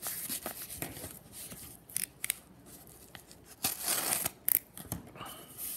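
Yellow padded paper mailer being handled and torn open: short crinkles, tears and clicks of paper, the longest and loudest about four seconds in.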